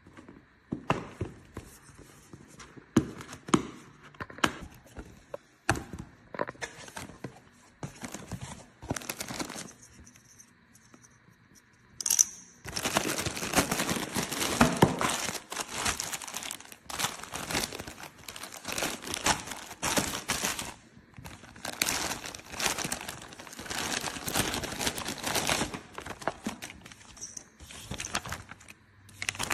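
Thin plastic crinkling and rustling in irregular bursts as it is handled, densest and loudest through the middle stretch.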